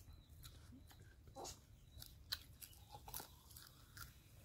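Faint chewing and wet mouth clicks of someone eating chicken curry by hand: scattered soft smacks and small crunches, with no talking.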